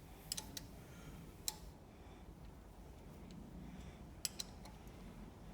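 A few faint, sharp clicks in small clusters: a spanner working the head bolts on a diaphragm dosing pump as they are loosened.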